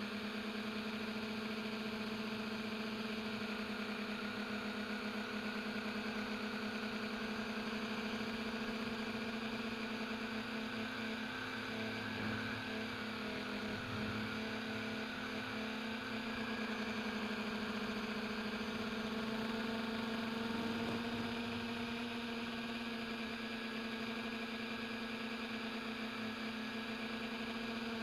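Electric motors of a tricopter running steadily in flight, a constant low hum with a higher overtone, its pitch shifting slightly about two-thirds of the way through.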